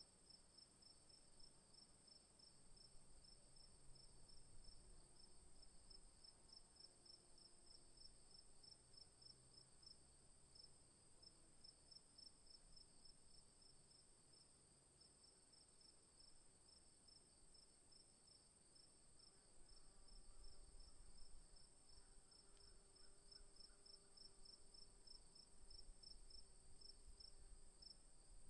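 Faint insects chirping, likely crickets: a steady high-pitched buzz under a fast, evenly pulsing chirp that runs without a break. A faint low rumble comes in during the last third.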